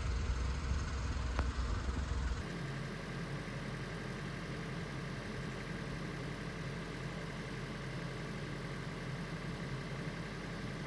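Steady low engine hum of a vehicle running at idle. About two seconds in the background switches abruptly from a deeper rumble to a steadier, even hum.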